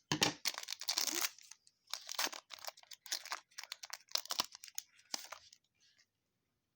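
Trading card pack wrapper and cards being handled: a run of short crinkling and rustling bursts that stops about five and a half seconds in.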